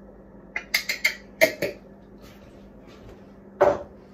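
A quick run of about six sharp clicks and knocks about a second in, then a single loud cough near the end.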